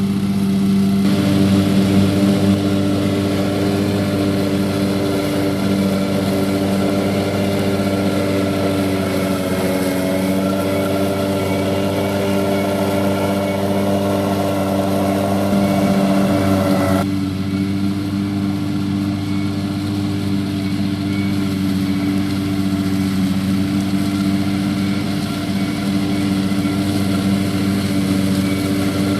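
BCS 749E walk-behind tractor's engine running steadily while driving a 38-inch finish mower with a bagger. The sound is fuller and louder from about a second in, then drops suddenly about two-thirds of the way through.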